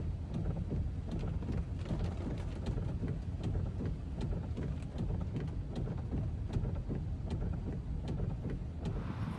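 Steady rain falling, with many scattered sharp drop ticks over a low, even rumble.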